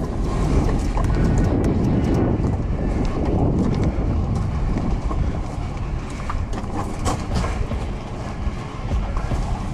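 Wind buffeting the microphone: a loud, continuous rumble with a few short clicks scattered through it.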